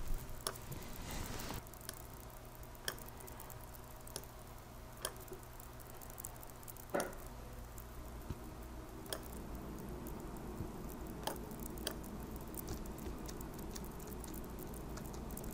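Faint, scattered clicks of a computer mouse, a second or more apart, over a low steady hum.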